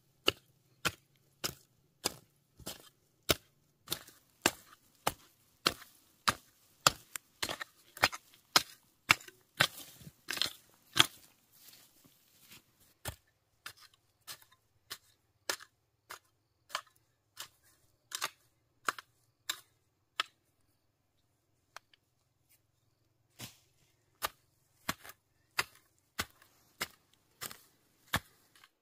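Pronged hand hoe chopping into dry soil, a sharp strike about two times a second. The strokes stop for a few seconds past the middle, then start again.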